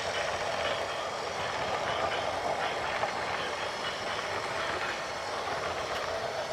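Steady mechanical noise of a heavy vehicle running, without distinct knocks or changes.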